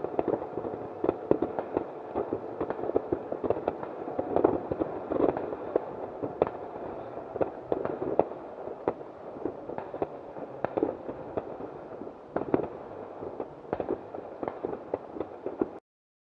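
Fireworks going off all around: a continuous crackle of many pops and bangs, which cuts off suddenly near the end.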